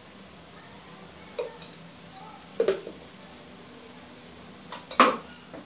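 A few short clinks and knocks of a spoon against a steel wok and a spice container: a small one, a louder one, and the loudest about five seconds in. A faint steady hiss runs underneath.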